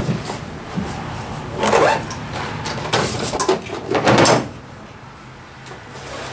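Guns being handled and slid into gun cases in a pickup truck-bed gun locker: a few scraping and knocking bursts, the loudest about two and four seconds in, then quieter.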